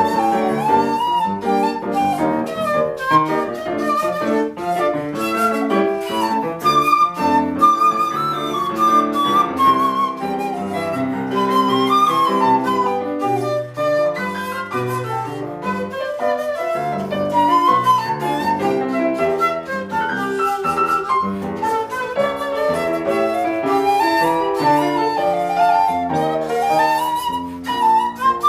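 Shakuhachi and piano duet: a seven-hole shakuhachi plays a flowing melody that rises and falls, with pitch bends between notes, over a steady flow of piano chords and broken notes.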